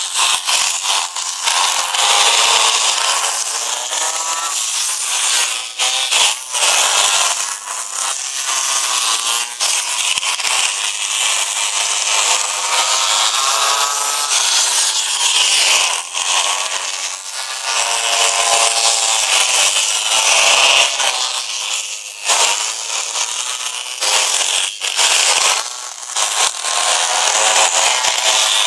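Small two-stroke pocket bike engines buzzing, their pitch rising and falling repeatedly as they rev up and ease off around the course.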